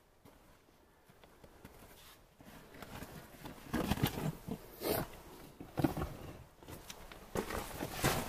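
Hiking boots scrambling over loose scree and broken rock, with gravel crunching and stones scraping and shifting underfoot in irregular bursts, starting about three seconds in.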